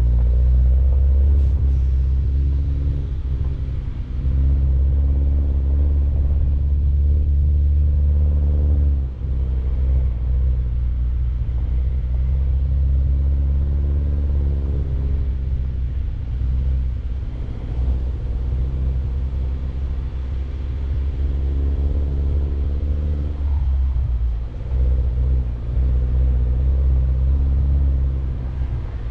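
A Mini Cooper Countryman All4 being driven over rough ground: a heavy low rumble with the engine note rising and falling as the speed changes.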